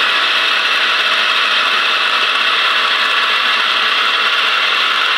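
Electric food processor running steadily and loudly, its blade spinning through raw chicken, egg, bread and spices and grinding them into a smooth burger-patty mince.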